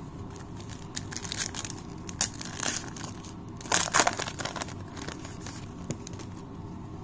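Foil wrapper of a Panini Legacy football card pack torn open and crinkled by hand, in crackling bursts, loudest about four seconds in.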